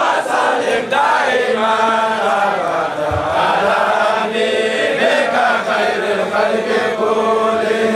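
Devotional chanting by several voices, a melodic line sung over a low note held underneath.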